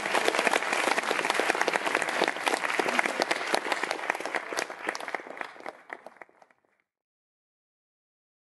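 Audience applauding with many hands clapping, dying away from about five seconds in and gone before the end.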